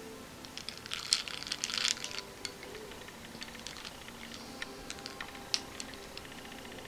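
Light clicking and tapping of small plastic things handled close by, thickest about one to two seconds in, then sparse ticks.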